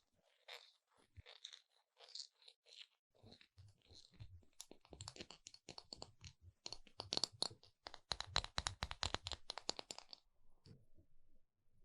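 Close-miked crisp crunching and crackling: scattered clicks at first, then a dense run of rapid crackles from about five to ten seconds in.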